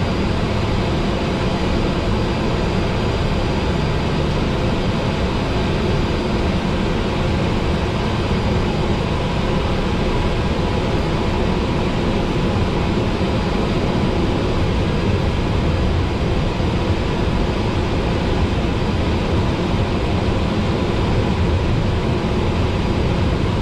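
TBM 850's Pratt & Whitney PT6A turboprop engine and propeller running steadily while taxiing, heard from inside the cockpit as a constant drone with a faint high steady whine.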